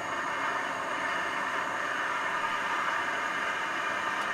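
A steady, even rushing noise, strongest in the middle of the hearing range, with no clear pitch or rhythm.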